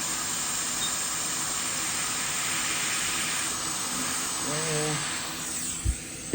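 Hot air rework station blowing a steady hiss of hot air onto the HDMI port joints, heating thick old solder on a heavy ground plane. The hiss fades away near the end, followed by a light knock.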